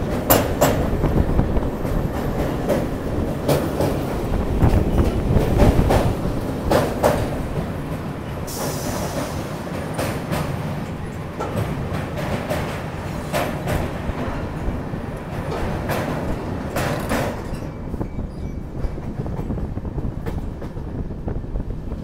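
A moving passenger train heard from on board: a steady rumble and hiss of the wheels on the rails, broken by scattered sharp clacks as the wheels cross rail joints. The higher hiss dies down about three-quarters of the way through.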